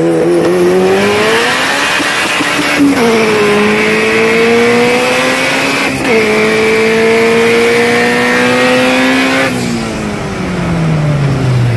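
Turbocharged Honda CRX engine pulling hard at full throttle: the revs climb, drop at two quick upshifts about three and six seconds in, climb again, then fall away when the throttle is lifted near the end.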